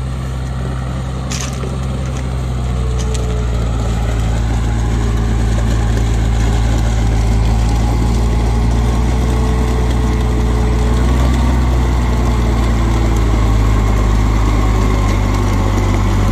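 Engine of a six-wheel military dump truck loaded with gravel, running steadily as the truck moves on gravel, getting louder over the first several seconds as it comes close. A brief click is heard about a second in.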